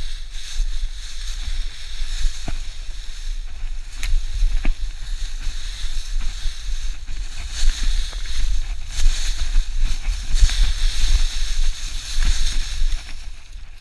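Footsteps crunching and shuffling through deep dry leaf litter, in uneven swells, over a steady low rumble, with a few sharp clicks in the first few seconds.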